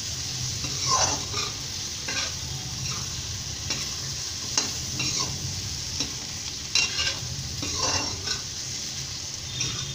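A metal spatula stirring potato and cauliflower pieces around a kadhai, scraping against the pan several times, while the oil and spice masala sizzle steadily underneath.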